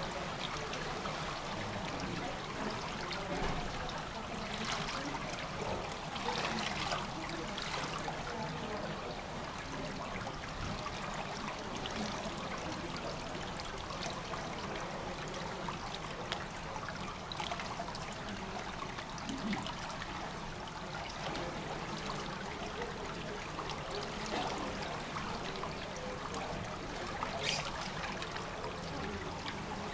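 Water trickling steadily into a swimming pool's overflow gutter beneath its grating, with a few faint knocks along the way.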